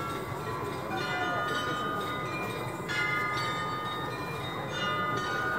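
Bells of the Munich Rathaus-Glockenspiel playing a tune, each new note ringing on over the ones before, over the murmur of a crowd.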